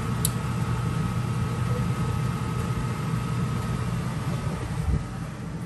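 Steady low mechanical hum with a faint steady whine over it, like an appliance or engine running. There is a light click near the start and a low thump about five seconds in, after which the hum drops a little.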